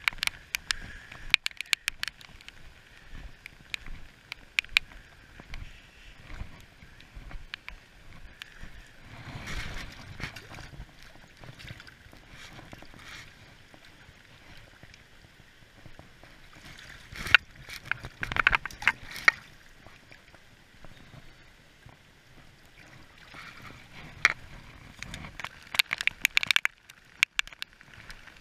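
Water sloshing and splashing as a salmon is held in the shallows by hand, with scattered sharp clicks and knocks in clusters, the loudest around the middle and again near the end.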